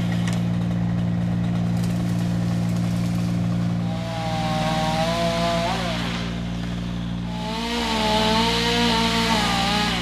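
Engine of an aerial bucket truck running steadily. Twice a higher motor tone joins in and wavers up and down in pitch, first about four seconds in for a couple of seconds, then again from near eight seconds.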